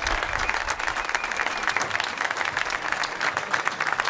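Crowd applauding, many hands clapping at once.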